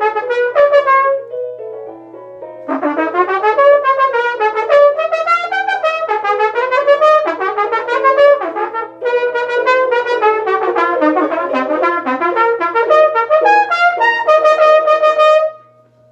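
Solo trumpet playing quick runs of notes, the closing bars of a prelude for trumpet. It softens briefly about a second in, then carries on and ends on a held note that cuts off near the end.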